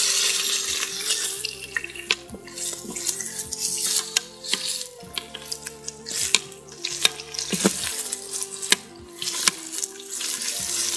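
Floured lamb chops sizzling in hot oil in the nonstick inner pot of a Breville fast cooker set to sauté, the hiss rising and falling as pieces are turned. Tongs click and scrape against the pot many times.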